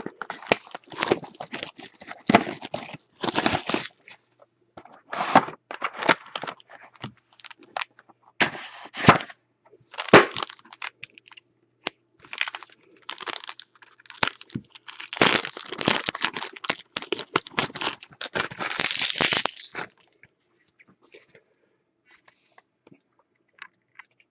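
Sealed trading-card boxes and packs being torn open by hand: crackling and tearing of wrapping and cardboard in repeated short bursts, which stop about four seconds before the end, leaving only a few faint clicks.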